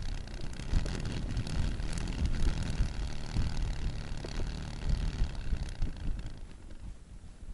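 Wind buffeting the microphone: an irregular, gusty low rumble that eases off about six and a half seconds in.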